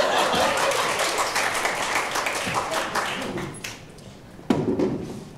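Theatre audience laughing and applauding, dying away after about three and a half seconds. A single sharp thump comes about four and a half seconds in.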